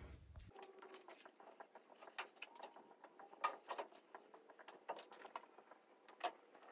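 Faint, irregular crinkling and rustling of clear plastic shrink wrap being handled and pulled away, with a handful of sharper clicks and ticks scattered through it.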